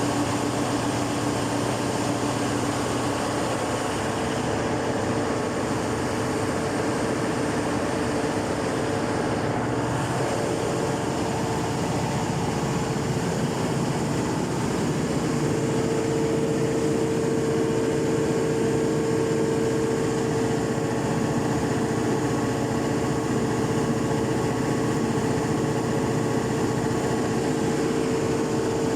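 Cummins KTA50 16-cylinder turbocharged diesel engine running steadily on its test run after a full overhaul, with a steady high tone that grows stronger about halfway through.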